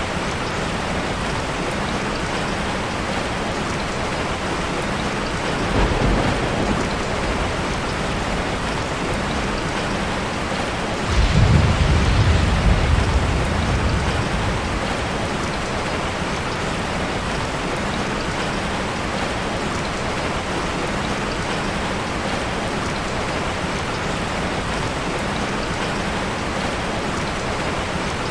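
Steady heavy rain falling, with two rolls of thunder: a short low one about six seconds in, and a louder one lasting about three seconds a little before the middle.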